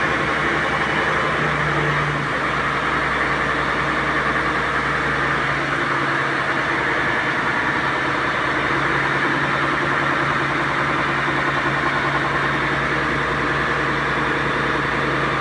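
Engine idling steadily, a continuous drone that does not rise or fall.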